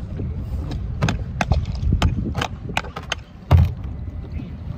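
Irregular clicks and knocks of rope and gear being handled on a plastic kayak, with one heavier thump about three and a half seconds in, over a low wind rumble on the microphone.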